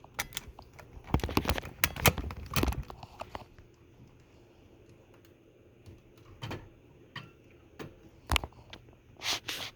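Scattered sharp clicks and knocks of equipment being handled, close to the microphone. There is a quick run of them in the first three seconds, a quiet stretch, then a few single clicks later on.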